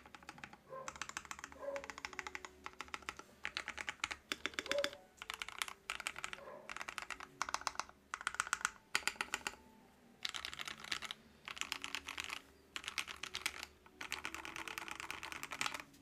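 Typing on a custom 60% keyboard with lubed Gateron Hippo switches, PBT keycaps and a brass plate in a resin case packed with heavily compressed Poly-fil. Quick runs of key clacks come in bursts with short pauses between them. The over-compressed fill removes the case's hollow ping but leaves the sound deadened and lifeless.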